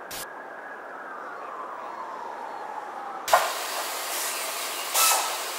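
Steady hiss under a faint tone that glides slowly downward, then a sudden, much louder burst of hiss about three seconds in, swelling again about five seconds in.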